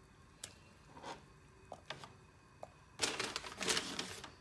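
Kitchen handling sounds: a few light clicks and taps, then about three seconds in a loud stretch of rustling and crinkling.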